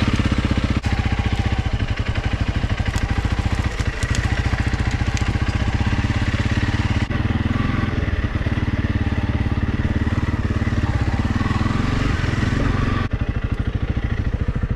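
Motorcycle engine running steadily, with a fast, even firing pulse; it dips slightly in level about 13 seconds in.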